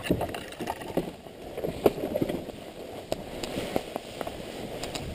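Enduro motorcycle running at low revs on a steep forest trail, heard muffled through a helmet camera, with scattered clicks and knocks from the bike over sticks and leaves.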